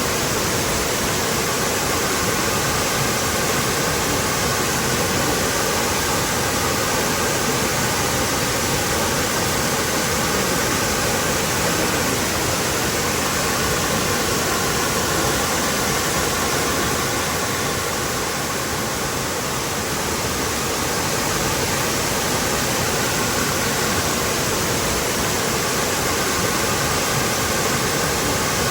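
Waterfall rushing with a steady, dense roar of falling water.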